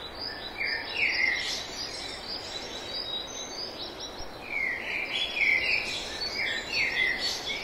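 Birds chirping and singing in short runs of quick notes, about a second in and again through the second half, over a steady outdoor background hiss.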